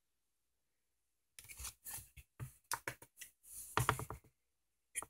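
Faint quick clicks and scratches of metal tweezers picking at a miniature clay bowl to pull out a piece of topping, clustered from about a second and a half in to just past four seconds.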